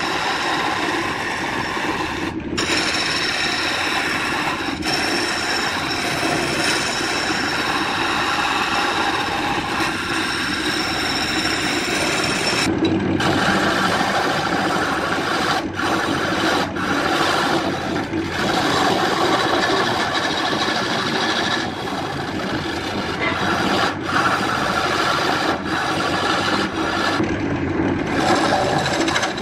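Wood lathe spinning an areca root blank while a hand-held turning tool cuts into it: a steady scraping rasp of the cut, with the lathe running underneath.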